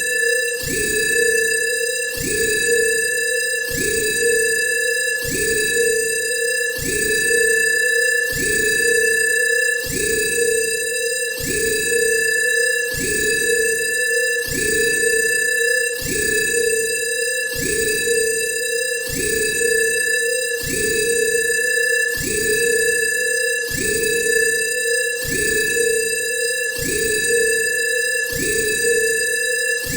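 Synthesized science-fiction alarm: a pulsing electronic tone that sweeps up in pitch at the start of each pulse, about three pulses every two seconds, over one steady high tone.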